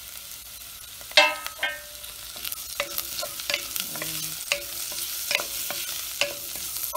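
Wooden spatula stirring sliced onions, green chilies and mustard seeds frying in oil in a stainless steel pot: a steady sizzle with repeated scrapes and clicks of the spatula against the pot, and a couple of short pitched scrapes about a second in and near four seconds.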